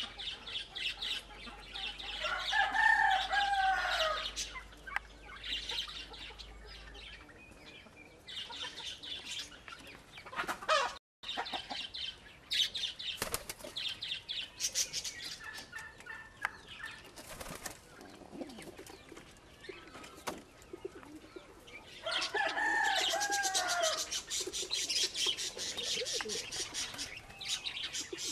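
Domestic fancy pigeons flapping and fluttering their wings around a wooden loft, in quick rustling bursts. Twice, about 3 s in and again near 22 s, a long drawn-out bird call rises and falls over the flapping.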